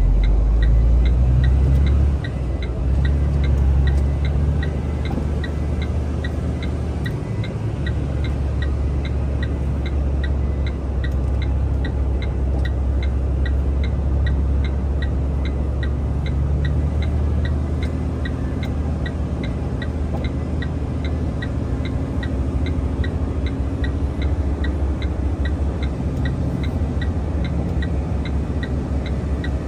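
Heavy truck's diesel engine running with a steady low rumble, its note shifting a few times, heard from inside the cab. A regular light tick, about two and a half a second, runs over it.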